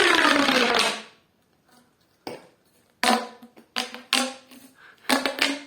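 Handling noise from a fidget toy and its packaging: a loud rustling burst lasting about a second, then a few short pitched squeaks or zips about a second apart.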